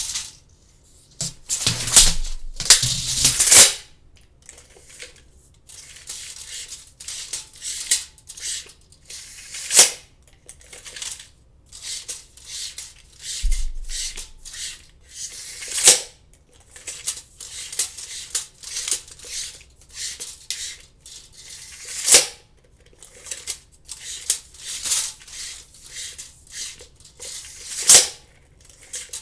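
Tape measure blade being pulled out and let go again and again: rattling, ratcheting runs of the metal blade, each ending in a sharp snap as the blade retracts into the housing, about every six seconds.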